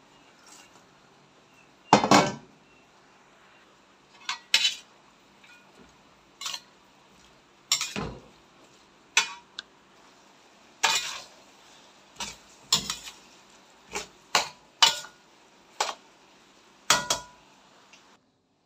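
Metal spatula clanking and scraping against a stainless steel wok while stir-frying noodles and cabbage: sharp, irregular strikes starting about two seconds in, roughly one or two a second.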